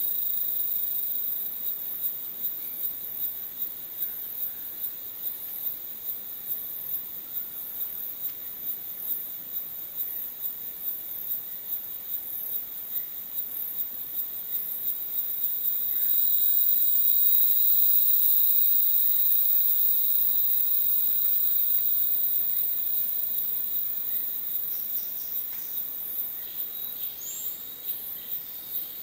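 Rainforest insect chorus: a very high-pitched trill pulsing regularly, over steady high-pitched whines that swell louder about halfway through and then ease off. A short rising chirp comes near the end.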